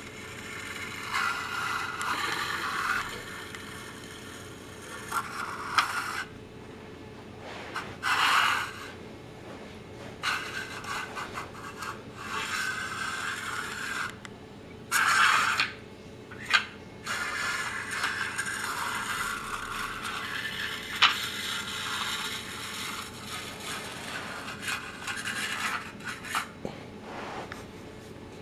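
Plastic toy boat dragged on a string across a tiled floor, scraping in uneven stretches of a second to several seconds with short pauses between.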